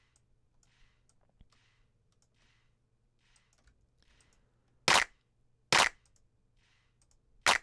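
Layered drum-sample clap looping about every 0.85 s. At first only its reverb is heard, as a faint airy wash on each beat with the wet signal soloed. From about five seconds in the full clap with its light reverb hits loudly.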